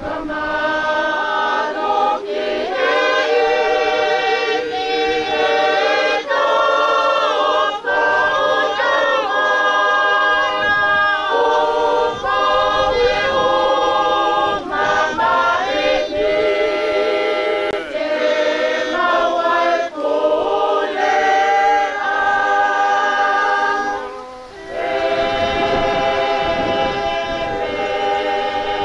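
A group of voices singing a hymn unaccompanied, in long held notes with vibrato, with a brief pause for breath near the end.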